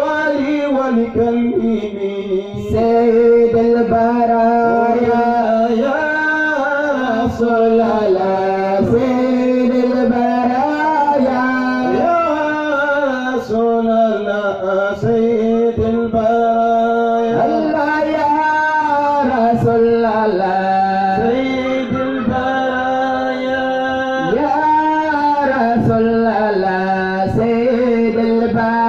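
A man chanting a religious praise song for the Prophet Muhammad into a microphone, singing long, unbroken phrases whose pitch bends up and down.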